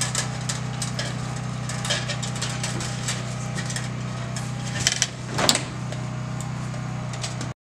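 Scattered clicks, taps and scrapes of copper wires and metal parts being handled inside a residential breaker panel, over a steady low hum; the sound cuts off suddenly near the end.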